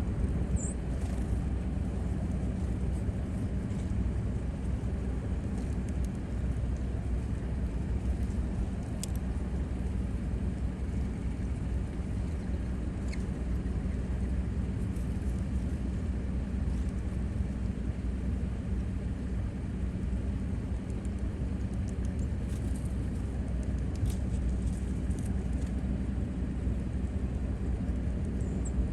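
Steady low rumble, with a few brief high-pitched bird chirps, one near the start and one near the end.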